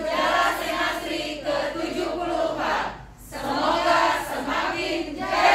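A group of women's voices in unison, delivering a greeting in two long phrases with a short break about three seconds in.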